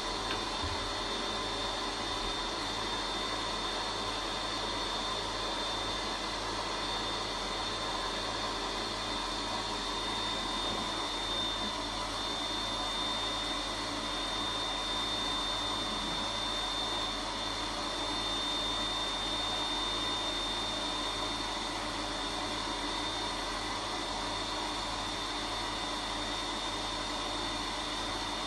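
Vacuum cleaner running steadily, a continuous rushing drone with a steady high whine.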